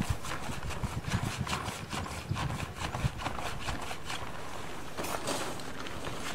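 A tarp crackling and rustling in rapid clicks as it is handled over a horse's back, then a louder swish about five seconds in as it is pulled off.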